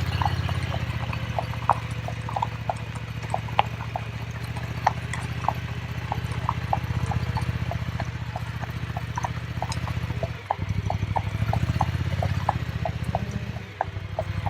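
Horses' hooves clip-clopping on a hard surface, many uneven knocks a second from several horses walking, over a steady low rumble.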